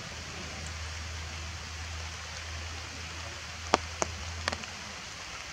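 Steady rain falling on forest foliage, an even hiss, with three sharp ticks of drops landing close by near the end. A low steady rumble underneath stops shortly before the end.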